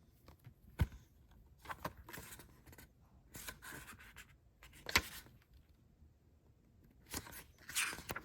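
Paper planner being handled and its pages turned: short rustles and scrapes of paper, with a few sharp taps, the loudest about five seconds in.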